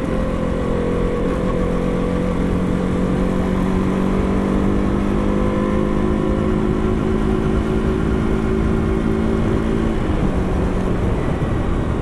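Motorcycle engine running at a steady cruise, its pitch creeping slightly higher before it eases off about ten seconds in, with wind rushing over the microphone.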